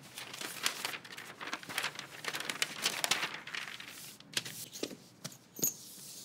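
Paper pattern piece rustling and crinkling as it is slid and smoothed flat over fabric, with the fabric swishing under the hands. Near the end, metal-washer pattern weights click down onto the paper with a short metallic ring.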